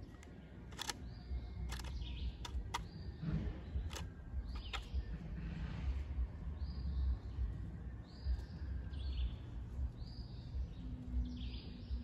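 Pileated woodpecker working its bill into a wooden timber to dig out an ant nest, giving a few sharp taps in the first five seconds. Short bird chirps repeat throughout.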